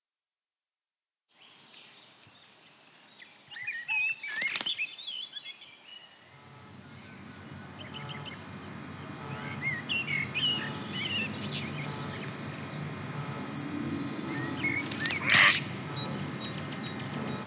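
Cartoon jungle ambience: birds chirping and twittering over a soft hiss, with a quick whoosh about four and a half seconds in. From about six seconds a low electric buzz builds underneath, more chirps follow, and a louder whoosh comes near the end.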